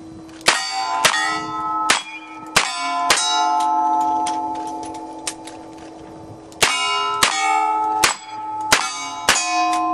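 Smith & Wesson Model 627 V-Comp .357 Magnum revolver firing quick strings of shots at steel targets, each hit followed by the steel plates ringing. About five shots come in the first three seconds, then a pause of about three seconds, then about five more.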